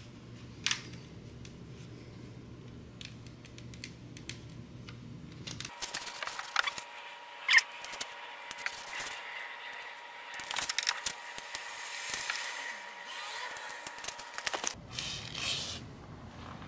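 Hands working double-sided foam tape onto a plastic side splitter: scattered clicks, scrapes and crinkles of tape and backing film, with one sharp click about seven and a half seconds in.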